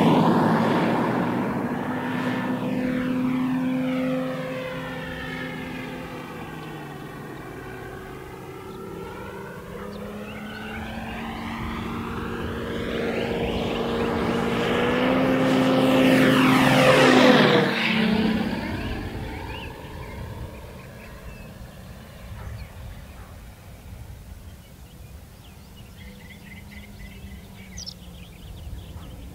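Hangar 9 60-size electric RC P-47 model with an onboard engine-sound system flying low passes: a steady engine note with propeller noise, loud at the start, fading, then building to a second close pass about seventeen seconds in. Its pitch drops as it goes by, then the sound fades into the distance.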